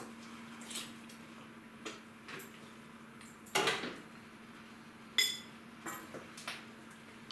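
Mop and plastic mop bucket being handled: a half-second clatter about three and a half seconds in and a sharp, ringing metallic clink about five seconds in, with a few lighter knocks, over a steady low hum.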